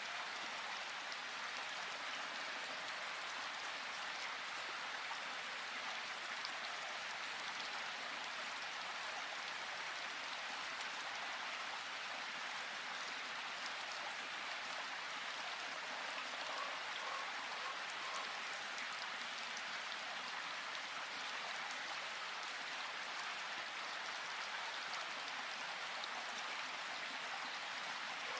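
Flowing river water, a steady even rush with no pauses.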